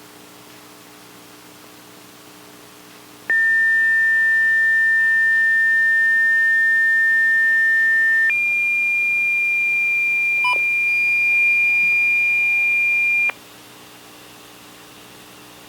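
Two loud, steady electronic beep tones on a NOAA Weather Radio broadcast: one pitch for about five seconds, then a jump to a higher pitch for about five more, cutting off sharply. A faint hum of dead air comes before and after. The uploader's tags name this kind of event a weather radio glitch.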